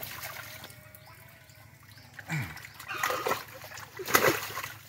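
Water splashing and dripping as large chital fish are lifted and handled in a net in shallow water, with the loudest splash about four seconds in. Brief voices break in now and then.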